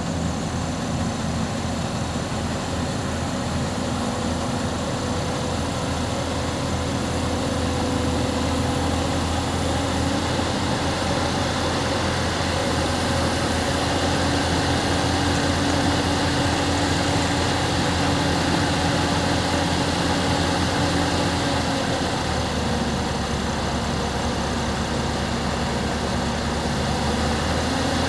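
Diesel engine of an excavator running steadily while loading a truck, its note shifting up and down a few times.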